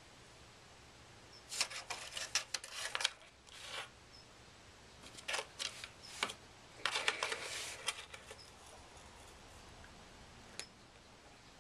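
A cat pawing and scratching at a cardboard Cat Amazing treat-puzzle box. The scratchy clicks and rattles come in three bunches, then a single click near the end.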